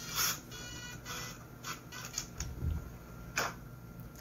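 Light clicks and knocks of a plastic copier developer unit being handled and picked up, with a low thump a little past the middle and a sharper click a bit past three seconds in.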